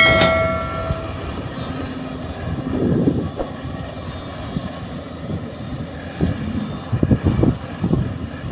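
Light box truck's engine running under load as it drives through deep mud and floodwater, a low uneven rumble that swells about three seconds in and again near the end. At the very start a bell-like chime rings and fades within about a second.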